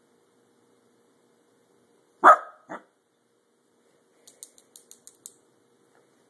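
Corgi puppy barking once, sharply and loud, with a shorter second bark right after. About two seconds later comes a quick run of faint, light clicks.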